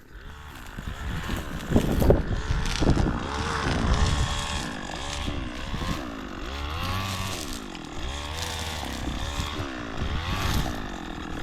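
Small petrol engine running with its pitch rising and falling over and over as it is revved, above a steady low hum.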